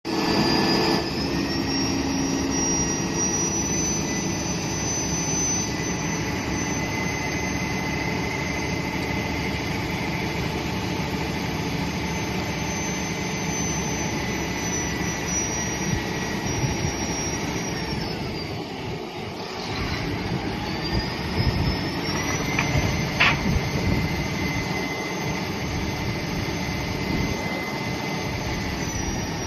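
Volvo A40D articulated dump truck's diesel engine held at high revs while its dump body is hydraulically tipped, with a high whine that rises at the start, falls away about 18 seconds in as the body comes down, and rises again a few seconds later as it is raised a second time. A single sharp knock comes about two-thirds of the way through.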